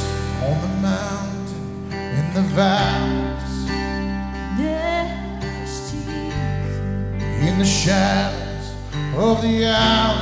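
Live worship band playing a slow song: acoustic guitar and bass under sustained chords, with a lead vocal singing.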